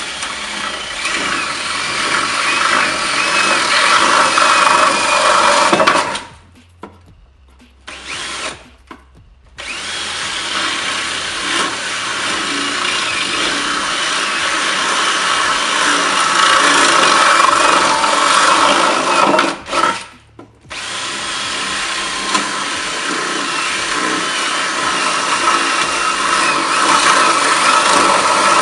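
Cordless drill running at speed, its bit cutting through a gel-coated fiberglass motorcycle fairing to open a hole for the speedometer plug. It runs in long stretches, stops for a few seconds about six seconds in with a short blip in between, and stops again briefly around twenty seconds.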